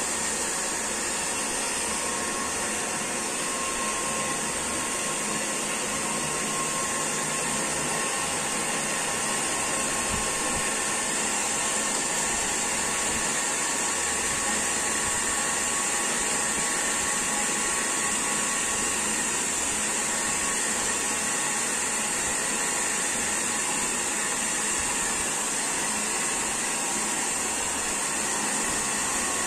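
Handheld hair dryer blowing steadily on a dog's coat, its motor giving a faint steady whine under the rush of air.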